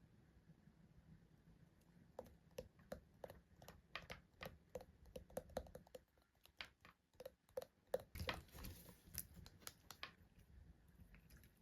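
ASMR tapping: a run of quick, light, irregular taps and clicks, two to four a second, with a brief rustle about eight seconds in.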